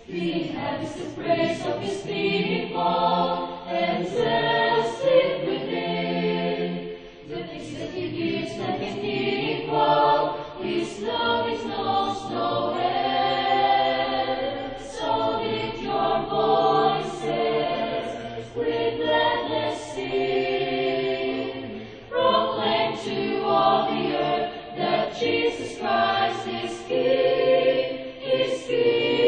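Mixed choir of young male and female voices singing a song of praise together in parts, phrase after phrase, with crisp sung consonants.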